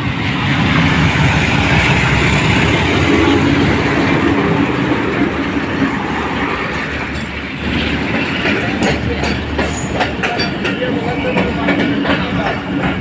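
Passenger train pulling into the station: a loud steady rumble and rattle of the train rolling past the platform, changing from about eight seconds in to irregular clanks and clatter.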